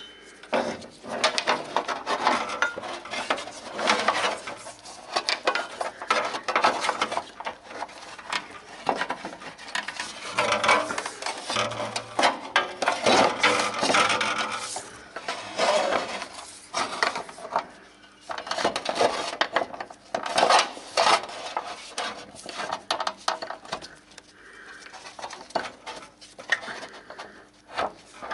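Metal scraping and rubbing in irregular strokes with scattered metallic clinks, from hand work on the rear brake hub during handbrake cable replacement.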